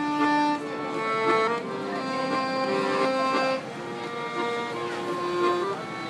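Instrumental tune of long held notes over sustained chords.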